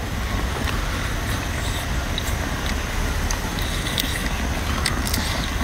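Steady outdoor hiss with a low rumble, and a few faint clicks of a mantis shrimp being bitten and chewed.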